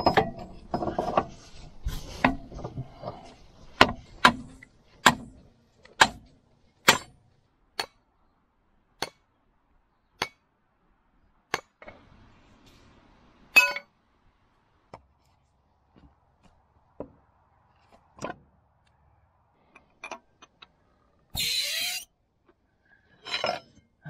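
Hammer blows on a steel track pin, driving the chilled, shrunk pin through the track links of an International TD9 bulldozer's crawler track to rejoin it. Sharp metallic strikes come about once a second at first, then with longer gaps, and a short burst of noise comes near the end.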